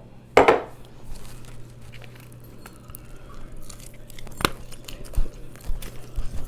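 Eating sounds: chewing with scattered clicks and knocks of food and utensils. The loudest are a short clatter about half a second in and a sharp click a little after four seconds, over a steady low hum.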